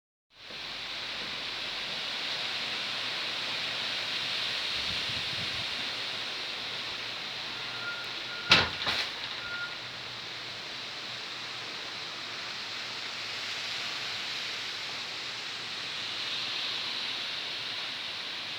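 Strong wind blowing, a steady rushing noise that swells and eases slowly. About halfway through there is a sudden loud knock, then a smaller second one, with a short faint high squeak around them.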